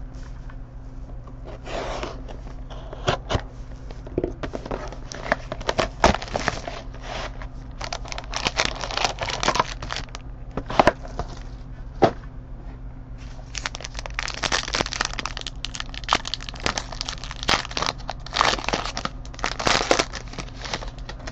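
Plastic shrink wrap being torn and crinkled off a sealed box of hockey trading cards, in irregular crackling handfuls with a few sharp clicks and snaps. A faint steady low hum sits underneath.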